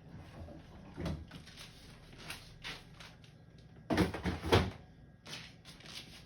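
Handling noises from clearing out a fridge: a series of knocks and clatters as containers and food are pulled out and thrown away, loudest in a quick cluster about four seconds in.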